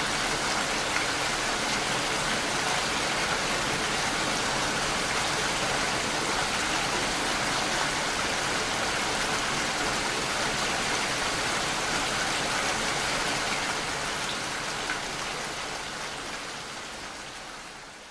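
Steady rain falling, a dense even hiss of many drops, fading out over the last few seconds.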